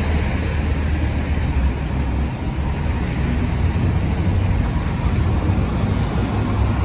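Diesel transit bus driving slowly past at close range, its engine a steady low rumble over surrounding traffic noise.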